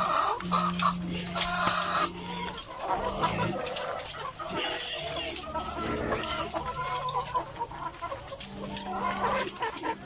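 A flock of caged laying hens clucking, many birds calling over one another.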